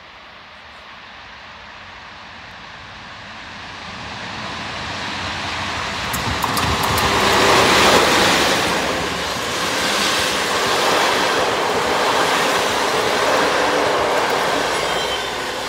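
PKP EP07 electric locomotive hauling an Intercity passenger train passing close by. The train's noise builds over the first several seconds and is loudest about halfway in as the locomotive goes past. The coaches then roll by with a steady rushing rumble of wheels on rails that swells and eases and begins to fade near the end.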